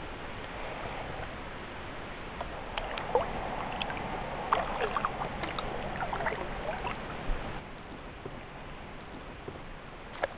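Kayak paddling: the paddle blades dip and splash, with water dripping and trickling off them in a cluster of small splashes through the middle, over a steady hiss. There is a single sharp click near the end.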